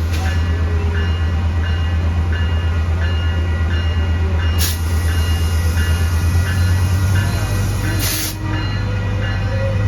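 Diesel passenger train running with a steady, loud low rumble, over an evenly repeating high tone about twice a second. Two short hisses come about five and eight seconds in.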